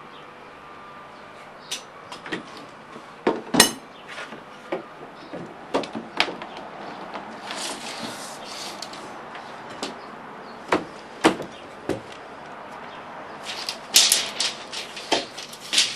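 Irregular knocks and clacks of hard objects being handled and set down, some singly and some in quick clusters, with the densest run near the end.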